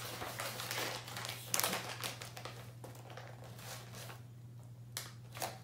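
Foil cotton candy bag crinkling as it is handled, with a run of rustles for the first few seconds and two short crackles near the end.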